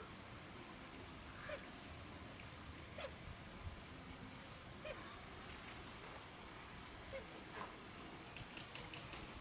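Faint outdoor ambience with a few brief, high animal squeaks and chirps scattered through it; the loudest comes about three quarters of the way in.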